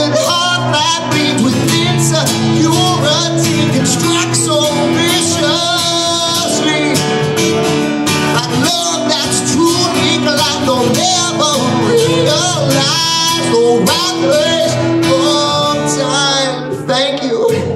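A man singing a song into a microphone while strumming an acoustic guitar, performed live.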